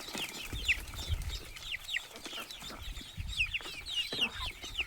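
Chickens clucking and calling, a dense run of short high calls that fall in pitch, several a second, with some low rumbling bumps underneath.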